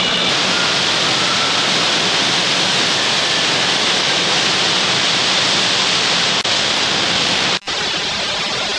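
Steady loud rush of water pumped over an indoor artificial sheet-wave surf ride. It briefly drops out twice near the end.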